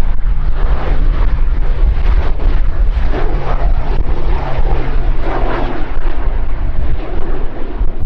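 Lockheed C-130H Hercules's four Allison T56 turboprops droning as the plane flies past low, with a steady propeller hum that ends about six seconds in. Heavy wind rumble on the microphone lies under it.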